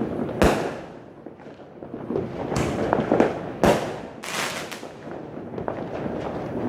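Fireworks going off: a sharp bang about half a second in, then a cluster of bangs with crackle around the middle, over a steady background rumble of further bursts.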